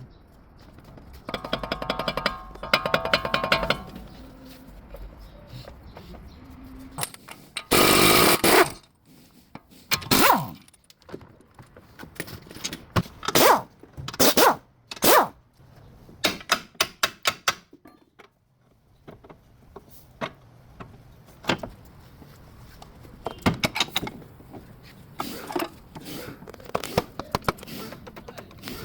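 Workshop work on a car's front drive shaft: a run of short bursts and sharp knocks, tool noise from the repair, over background music.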